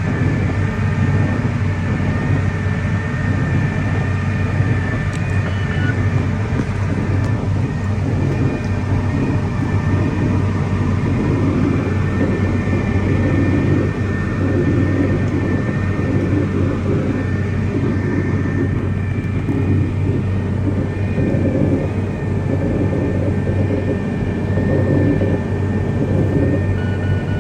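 John Deere cotton picker running steadily while harvesting: a constant low diesel drone with a thin, steady high whine over it.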